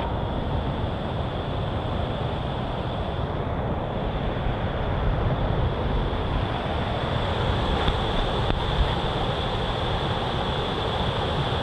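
Wind buffeting an action camera's microphone outdoors: a steady rushing noise with an uneven low rumble, with no distinct events.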